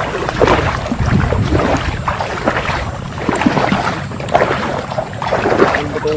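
People wading through shallow floodwater, their steps sloshing and splashing at an irregular pace.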